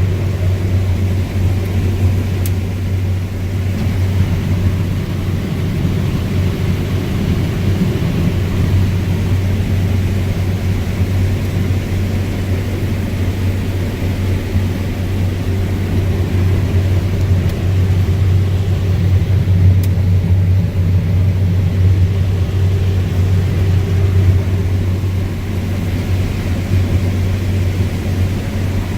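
Claas Lexion 750TT combine running steadily while harvesting corn: a constant low engine-and-machinery drone that does not change.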